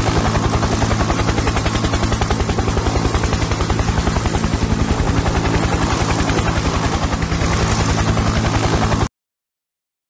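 A loud, rapid, steady mechanical throbbing, added as a night-noise sound effect, that cuts off suddenly about nine seconds in.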